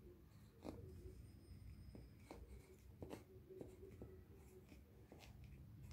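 Faint scratching and light taps of a pencil writing letters on graph paper, in short irregular strokes.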